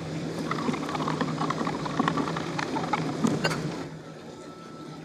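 Salt being poured from a canister into a glass of water while a metal spoon stirs and clinks against the glass: a grainy hiss with scattered sharp clinks. It stops about four seconds in.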